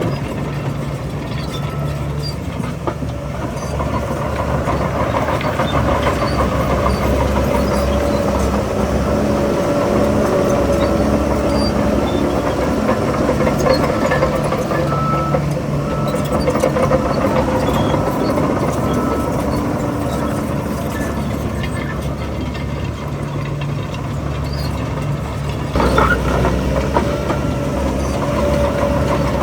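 Diesel engine of a Shantui DH17 crawler bulldozer running under varying load, with its tracks clanking. There is a sharp knock near the end.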